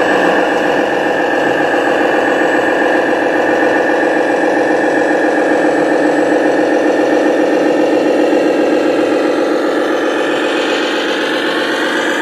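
Radio-controlled Volvo FH12 tipper truck model running: a loud, steady mechanical drone with a whine, shifting slightly in pitch near the end.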